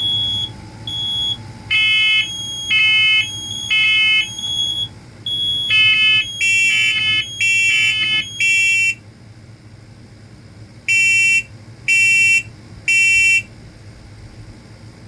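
Interconnected smoke alarms going off together in the three-beep evacuation pattern while the First Alert 7020B is being tested. A high single-tone beep and lower, richer beeps from different units overlap out of step, and a last group of three beeps follows a short pause.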